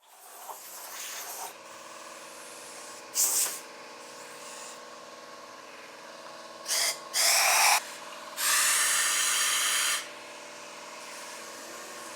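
Air compressor starting up and running with a steady hum, while a compressed-air blow gun gives hissing blasts: a short one about three seconds in, two close together around seven seconds, and a longer blast of about two seconds soon after.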